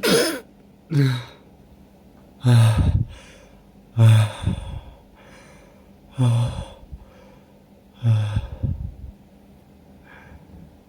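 A person sneezing over and over in an uncontrolled fit, about six sneezes one to two seconds apart, each a sharp blast with a short falling voice. The fit is set off by chhinkni, a sneeze-inducing herb.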